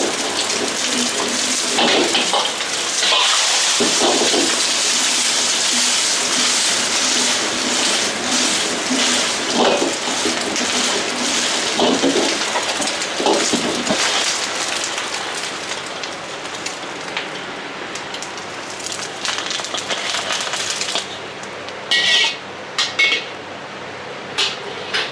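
Eggs sizzling loudly in hot oil in a wok over a gas flame, with a metal ladle scraping and clinking against the wok. Near the end the sizzling stops and a few sharp clinks follow.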